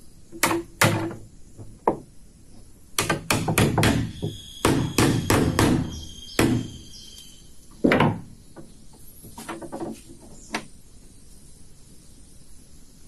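Hammer blows on wood, struck in quick irregular runs with short pauses between. Some blows leave a brief ring, and a few fainter taps come near the end.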